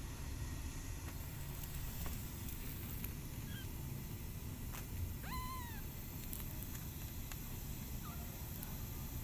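A newborn kitten gives one short mew about halfway through that rises and then falls. A steady low rumble of background noise runs under it, with a couple of faint squeaks.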